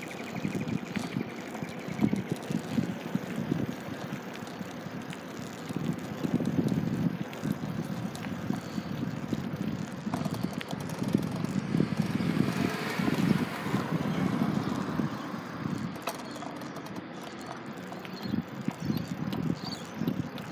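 Small wheels rolling over rough asphalt, a continuous gritty rumble that swells and fades as the ride goes on, with wind buffeting the microphone.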